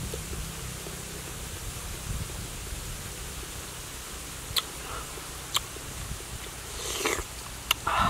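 Close eating and food-handling sounds as honeycomb is broken and brought to the mouth: a few sharp clicks and a short crackle near the end, over a steady low rumble.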